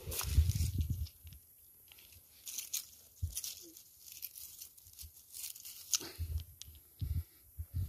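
Dry leaf litter crackling and crunching as a hand rummages through it, picking seeds off the ground, with a few dull low thumps of handling.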